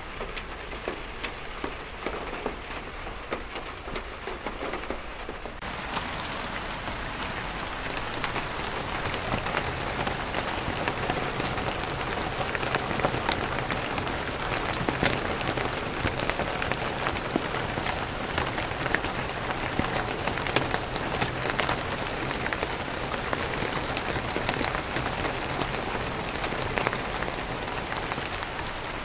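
Steady rain, first on a tiled roof with runoff dripping from the edge. About six seconds in it changes abruptly to louder, denser rain pattering on open water, with many sharp drop splashes.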